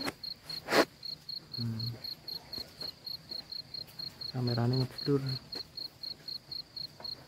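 A cricket chirping steadily, a high note pulsing evenly several times a second. A sharp knock just under a second in, and low voices talking briefly in the background.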